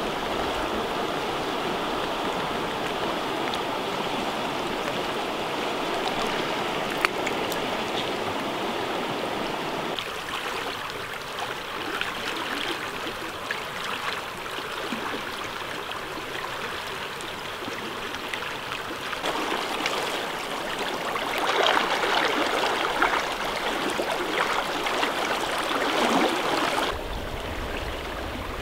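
Flowing mountain river water rushing over a shallow, rippled stretch: a steady watery noise that shifts in level a few times and grows louder and rougher for a few seconds past the middle.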